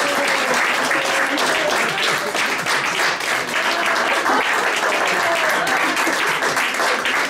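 Small audience applauding steadily, with a few voices heard over the clapping.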